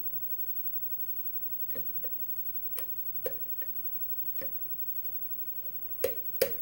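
Ilco brass pin-tumbler lock cylinder being picked with a hook pick under tension: scattered light metallic clicks as the pick works the pins and pins set, with two louder clicks close together near the end.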